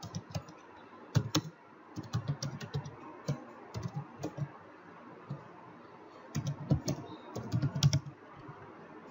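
Typing on a computer keyboard: irregular runs of key clicks, with a lull of about a second and a half around the middle.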